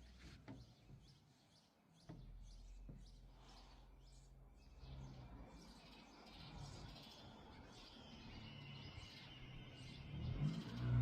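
Faint bird chirping over a low steady background hum, with a louder pitched sound coming in near the end.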